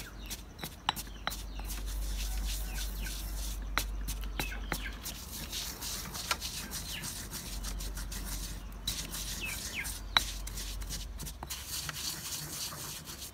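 Birds chirping now and then, with scattered light clicks and taps through it.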